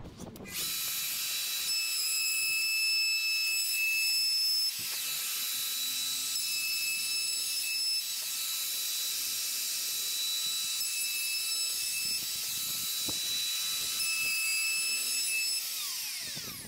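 Plunge router cutting a kitchen worktop joint along a worktop jig in shallow passes of about 5 mm: a steady high whine that starts about half a second in, then winds down with falling pitch near the end.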